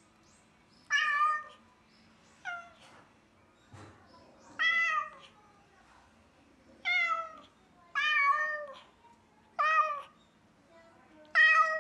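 Cat meowing repeatedly in mournful, drawn-out cries, seven in all, about one every one and a half to two seconds, each falling in pitch at the end. It is crying while left alone by its owners, who suspect separation anxiety.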